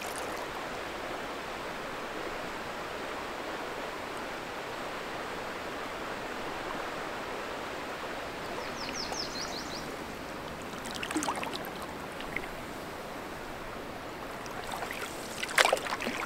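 Steady rush of moving water around a canoe paddled up a river, with a few louder paddle splashes and knocks, the biggest near the end. A bird gives a short, quick high trill about nine seconds in.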